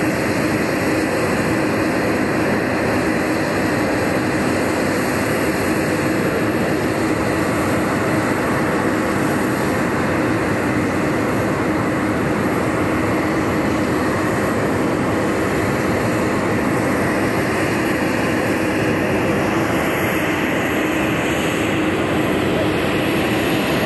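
Embraer Praetor 600 business jet in flight, its twin Honeywell HTF7500E turbofans making a steady jet rush, with more hiss near the end.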